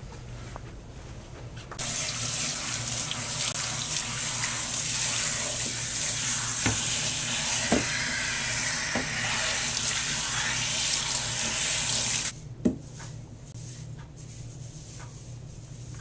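Water running from a salon shampoo-bowl sprayer onto hair and into the sink: a steady spray that starts about two seconds in and cuts off suddenly some ten seconds later, followed by a single knock.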